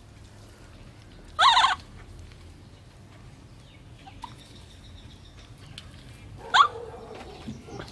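Baby macaque giving two loud, shrill, wavering screams while it is being bathed, the first about a second and a half in and the second near the end.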